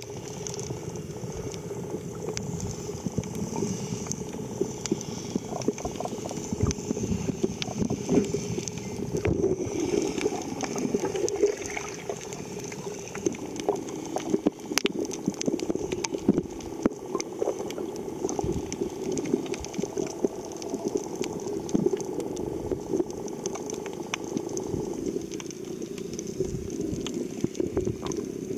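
Sound heard underwater through a submerged camera: a steady muffled rush of water and bubbling, dotted with many small clicks and crackles.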